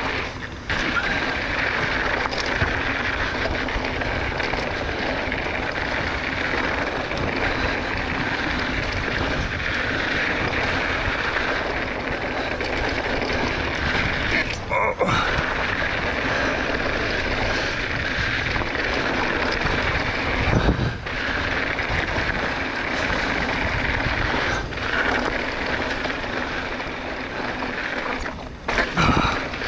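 Mountain bike riding fast over dry, rocky dirt trail: knobby tyres rolling and crunching on gravel, with wind buffeting the camera microphone. The noise drops out briefly a few times, about halfway through and again near the end, as the bike goes over jumps, with a heavy low thud a few seconds after the middle.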